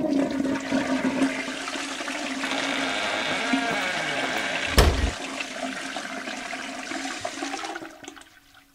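A toilet flushing: a rush of water that runs for several seconds and dies away near the end. One sharp knock comes about halfway through and is the loudest sound.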